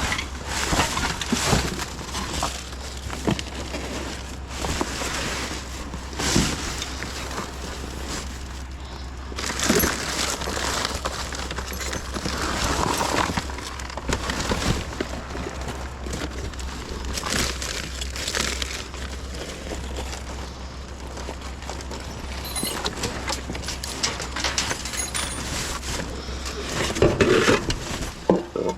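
Hands rummaging through a pile of junk, with plastic and metal items rustling, crinkling and clattering in a run of irregular knocks. A steady low hum runs underneath.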